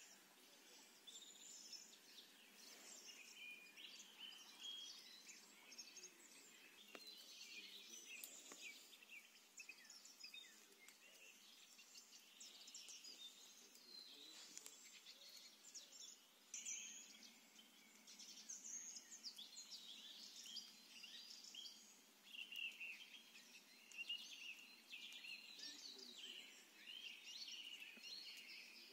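Faint birdsong from several small birds: many quick chirps and trills overlapping.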